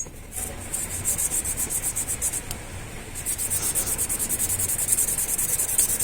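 Oil-contaminated bicycle disc brake pad being rubbed back and forth on sandpaper: a quick rhythmic rasping of about six or seven strokes a second, with a short pause about halfway through. The sanding takes off the oily glaze that keeps the pad from gripping the rotor and makes the brake noisy.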